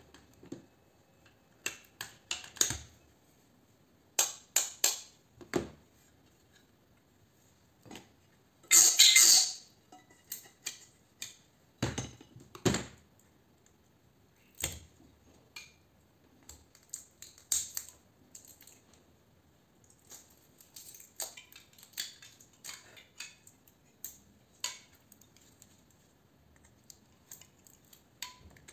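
Screwdriver and hands working on a white plastic part and thin sheet-metal plate of a dismantled light fitting: irregular clicks, taps and small knocks, with a louder scrape lasting about a second and a half around nine seconds in.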